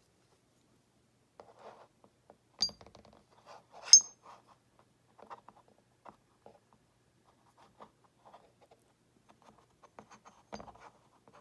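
Steel pistol parts handled and set down on a cutting mat as the CZ75 barrel comes out of the slide: light clicks and rubbing, with two sharp metallic clinks about two and a half seconds in and a second later, the second the loudest, and another knock of parts near the end.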